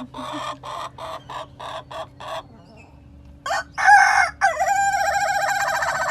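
A rooster crowing. About seven quick, short sounds come first, then a crow begins halfway through with short opening notes and a long, drawn-out final note that is still held at the end.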